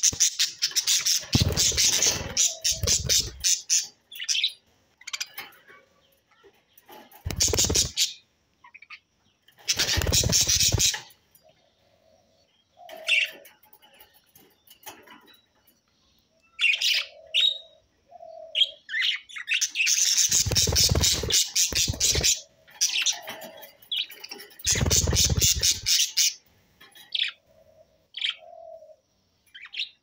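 A group of budgerigars chattering: bursts of fast, warbling chatter lasting a second or more, five times, with single chirps between them. A low rumble sits under the loudest bursts.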